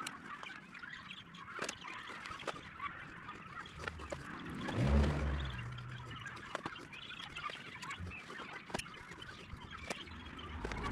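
Poultry calling, one loud call about five seconds in and another near the end, with faint scattered clicks between them.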